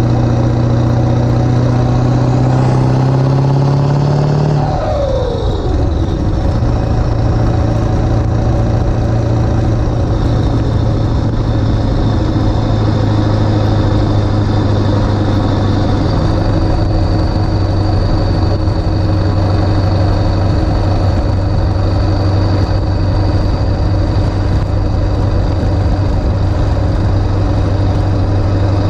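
Ford 7.3 Powerstroke V8 turbodiesel, running stage 1.5 160/30 injectors, pulling a pickup under way. The engine pitch climbs for about four seconds, drops quickly about five seconds in, then holds steady at cruise with a faint high whine over it.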